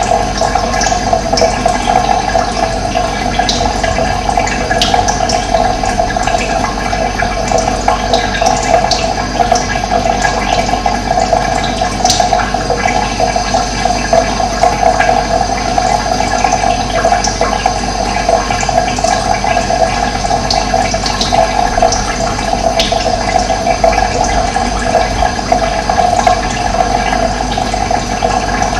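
Running water flowing steadily, an even rushing sound that does not change.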